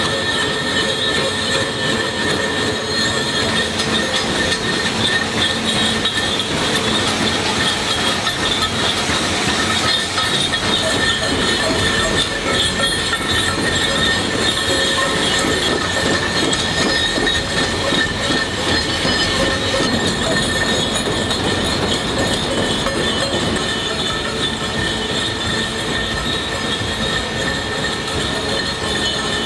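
Heavy industrial machinery running steadily, a dense metallic noise with several high squealing tones held throughout.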